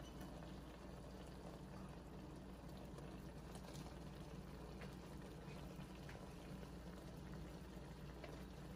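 Spinach and cream sauce simmering faintly in a frying pan, with small bubbling pops scattered through a steady low hiss.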